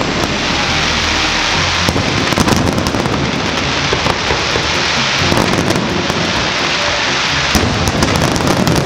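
Aerial fireworks bursting in a dense, continuous barrage: many overlapping bangs and crackles with no pause between them.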